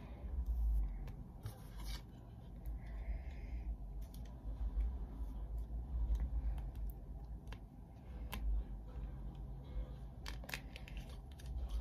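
Trading cards being handled and slid into clear plastic sleeves: soft plastic rustling and scattered small clicks, with a short rustle about three seconds in.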